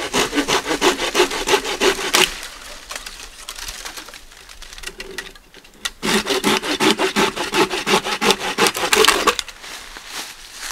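Hand saw cutting through a dead pine branch in quick back-and-forth strokes: a spell of sawing at the start, a quieter stretch of a few seconds, then a second spell of about three seconds.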